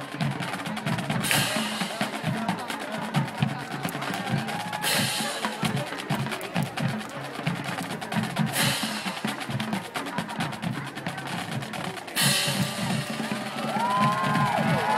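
High school marching drumline playing a cadence: rapid snare strokes over bass drum hits, with a crash about every three and a half seconds. A crowd starts cheering and whooping near the end.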